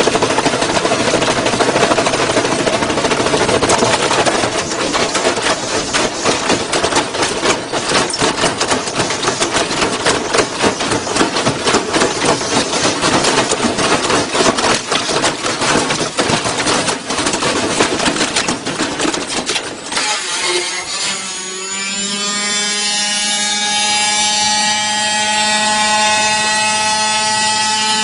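Front-loading washing machine on a violent unbalanced spin, banging and rattling loudly as it shakes itself apart. About twenty seconds in the din drops away abruptly and a whine rises in pitch and then holds steady: the drum and motor spinning on with the casing broken open.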